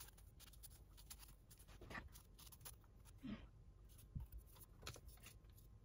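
Near silence, with faint scattered clicks and a few short, soft rustles of small handling noises.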